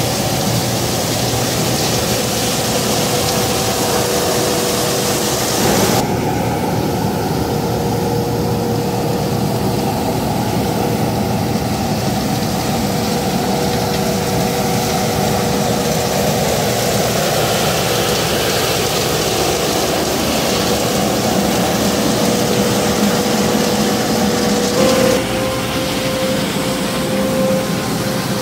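Johnston truck-mounted road sweeper at work, its engine and suction running steadily with a whine held on one pitch as the gutter brush spins on the road surface. The whine rises a little near the end.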